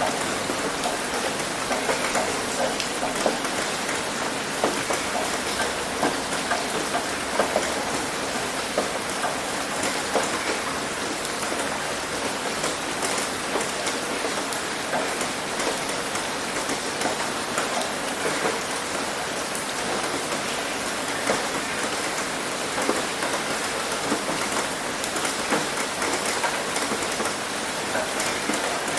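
Heavy rain pouring steadily on a roof, a dense patter of drops with many small sharper taps standing out.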